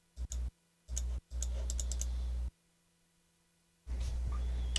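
Several sharp computer clicks, keys or mouse buttons, pressed while paging through presentation slides: two quick ones near the start, then a run of clicks in the following second. A low steady hum sits under them.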